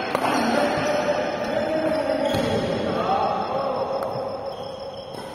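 A badminton racket cracks against a shuttlecock in an overhead hit right at the start, echoing in a large indoor hall. A lighter tap comes about four seconds in, with indistinct voices murmuring underneath throughout.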